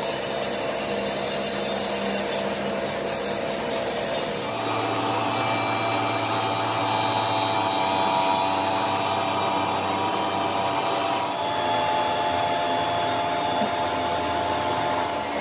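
Steady machine-shop noise of metal being worked by a power tool, with steady whining tones, changing abruptly twice.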